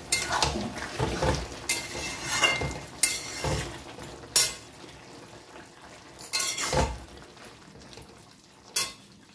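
A spatula scraping and knocking against a metal kadai as a thick pumpkin and potato curry is stirred, with irregular clattering strokes that thin out in the second half.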